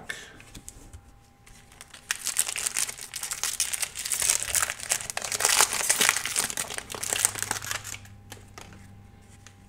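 Foil wrapper of an Upper Deck hockey card pack crinkling as hands tear it open and handle it. It is a dense crackle from about two seconds in until about eight seconds, with quieter rustling either side.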